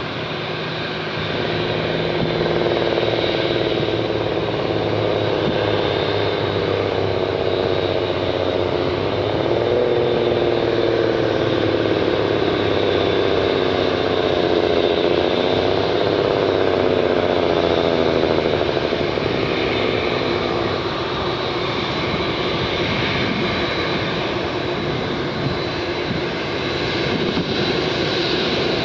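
Boeing 747-8F's four GEnx turbofan engines at low thrust as the freighter taxis: a steady jet whine with a high, thin whistle over lower tones that slowly waver up and down.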